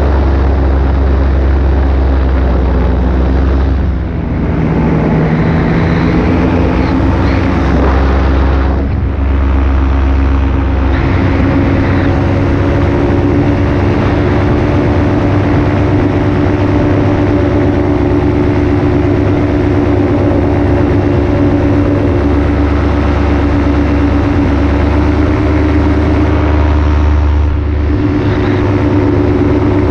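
Paramotor engine and propeller running steadily in flight, a loud, even drone that eases briefly about four and nine seconds in and again near the end.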